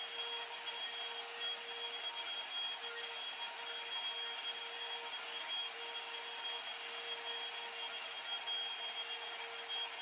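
Revlon One-Step hot air brush (hair dryer and volumizer) running steadily, a rush of air with a steady hum and a thin high whine from its motor.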